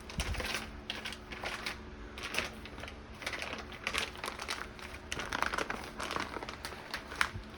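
Packaging being handled and crumpled: an irregular run of crinkles and crackles, as from plastic wrap or paper being pulled off the contents of the box.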